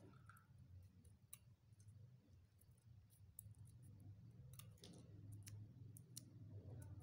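Faint, scattered clicks of scissors making small snips in a folded paper strip, a handful of them spread across several seconds.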